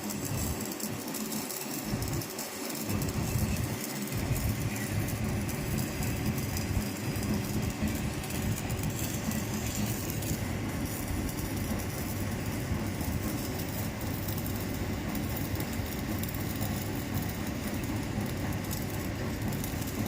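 Stick-welding arc crackling steadily as an E6013 electrode lays the root pass on a galvanized iron pipe-to-socket-flange joint.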